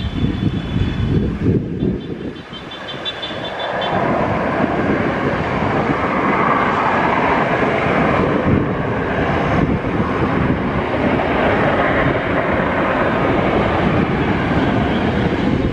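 Jet engines of a rear-engined twinjet airliner at take-off power on the runway: the noise swells from about two and a half seconds in, then holds loud and steady.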